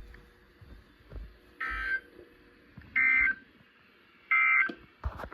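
NOAA Weather Radio EAS end-of-message (EOM) signal: three short, identical, buzzy digital data bursts about 1.3 seconds apart, the SAME code that closes the Required Weekly Test. A click near the end.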